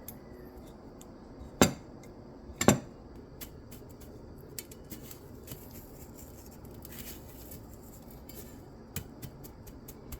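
Kitchen utensils knocking against dishes: two sharp knocks about a second apart near the start, then lighter scattered clinks and ticks.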